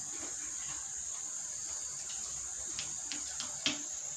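A steady, high-pitched insect trill, typical of crickets, runs throughout, with a few light clicks of tableware and a sharper knock near the end.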